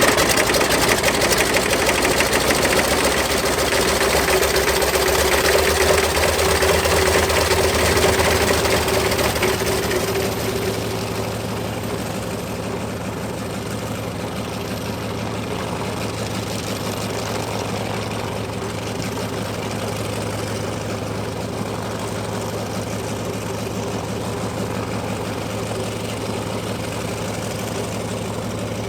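Vedeneyev M-14P supercharged nine-cylinder radial engine of a Sukhoi Su-29 running just after start-up, loud at first, then settling about ten seconds in to a steady, quieter idle.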